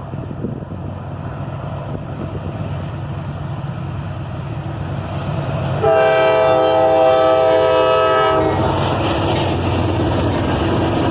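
A CSX freight train approaching, its locomotive and wheel noise growing louder, then one horn blast of about two and a half seconds, a chord of several notes, about six seconds in. After the horn, the locomotives and cars pass close with loud, steady wheel noise and some clatter.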